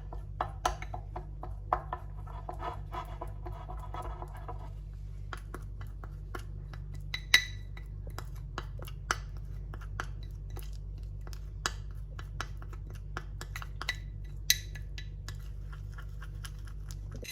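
A teaspoon stirring and scraping a thick honey, turmeric, ginger and lemon paste in a small dish, with many irregular clinks and scrapes of metal against the dish. The scraping is densest in the first four or five seconds, then thins to scattered clinks, a few of them louder.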